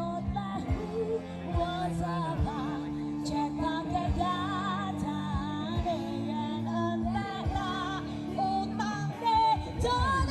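A song with vibrato-heavy singing over drums and a strong bass line, played through a large line-array PA system with 18-inch subwoofers.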